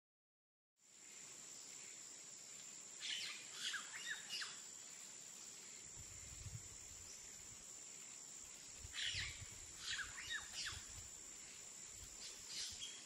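Birds chirping in three short flurries of quick calls over a steady high-pitched insect drone, starting about a second in.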